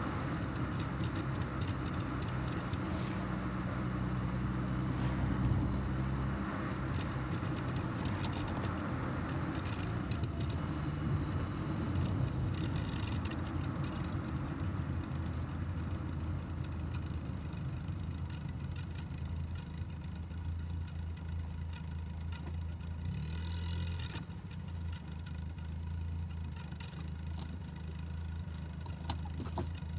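1984 Volkswagen Golf Mk2 GL's carbureted petrol four-cylinder engine running while driving, with road and tyre noise. The engine note changes about six seconds in and again a little past the middle, as the speed changes.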